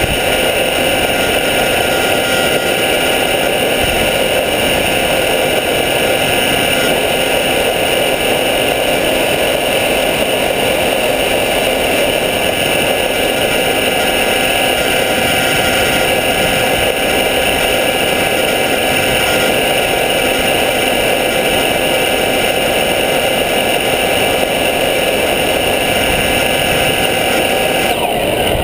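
Steady whine of a model RQ-11 plane's motor and propeller, picked up by the onboard camera, over a dense rushing noise. Near the end the sound changes abruptly, and gliding tones appear.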